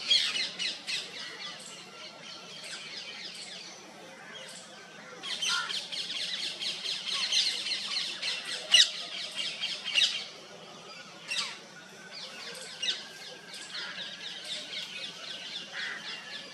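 Songbirds chirping and calling in a busy chorus of rapid, high chirps, thickest through the middle, with a few sharper single calls standing out and thinning out in the later part.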